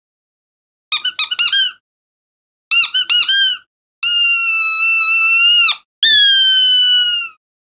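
Ball-shaped squeaky dog toy squeezed by hand. Two quick flurries of short squeaks come first, then two long drawn-out squeaks, the last one falling slightly in pitch as it ends.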